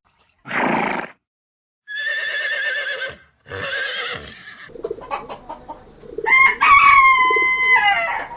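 Rooster crowing. There are shorter pitched calls first, then one long crow held on a steady pitch that drops away at its end, the loudest sound of the stretch. A short noisy burst comes near the start, followed by a brief break of dead silence.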